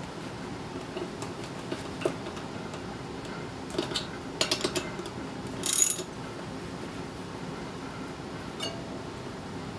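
Socket wrench and ratchet working steel bolts on a motorcycle wheel hub: scattered metal clicks and clinks, a quick run of clicks a little before halfway, then a brief louder ratcheting rattle.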